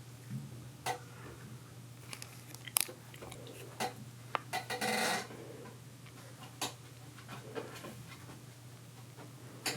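Kittens playing in a playhouse: scattered light taps and clicks, with a brief scratchy rustle about five seconds in, over a steady low hum.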